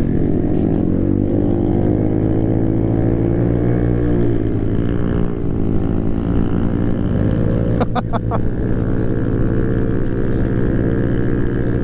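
Vespa scooter's single-cylinder engine and exhaust running steadily under way, its pitch dipping and then rising again with the throttle. A short burst of sharp clicks comes about eight seconds in.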